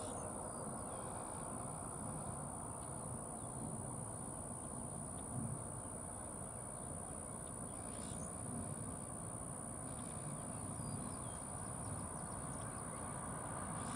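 Low, steady rumble of an approaching CSX freight train's diesel locomotives, with a steady high-pitched tone above it.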